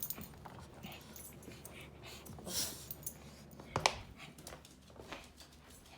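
Two pet dogs moving about indoors: faint rustling and shuffling, with a sharp click a little under four seconds in.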